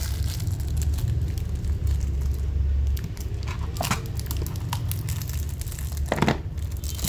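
Handling noise as a Zippo lighter and its box are turned over by hand: rustling and low rubbing with a few small clicks and taps, the sharpest about six seconds in.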